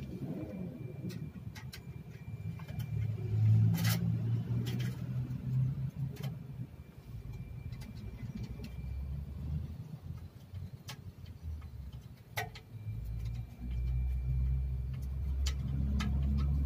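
Scattered metal clicks and scrapes of a flathead screwdriver tightening a hose clamp on a pickup's exhaust tailpipe, over the low rumble of a motor vehicle's engine that grows louder near the end.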